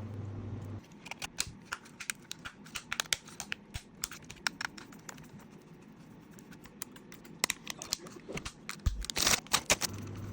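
Irregular light clicks and taps of small parts being handled by hand, with a low hum that stops just under a second in and a louder rustle about nine seconds in.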